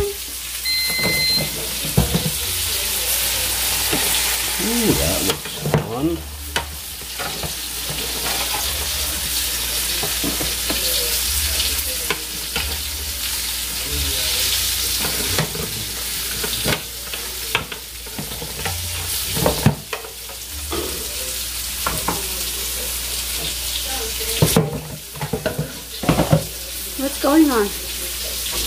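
Green beans frying and sizzling in a pan over medium heat, with many short clicks and scrapes of metal tongs against the pan and an air fryer basket.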